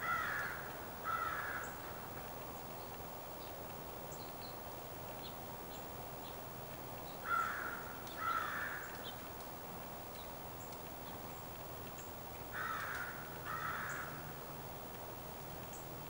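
A crow cawing in pairs of harsh calls, three pairs spread a few seconds apart. Faint high chirps of small birds sit over a steady background hiss.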